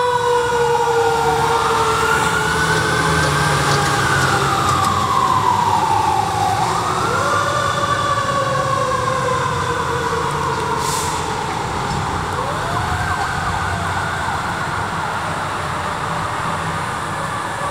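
Fire truck sirens wailing in long sweeps: each rises quickly and falls off over several seconds. Under them is the low rumble of the fire apparatus engines as the trucks pass and pull away.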